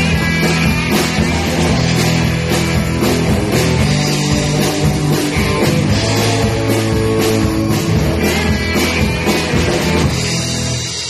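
A live blues-rock band playing: electric guitars, bass guitar and drum kit, with a steady drumbeat under sustained guitar and bass notes. It eases off slightly in the last second.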